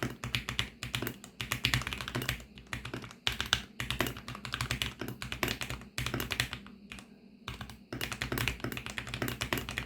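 Fast typing on a VARO V68 mechanical keyboard with VARO Panda linear switches, lubed with Krytox 205 on the stems and Krytox 105 on the springs: rapid runs of keystrokes, with a short break about two and a half seconds in and slower, sparser strokes about seven seconds in.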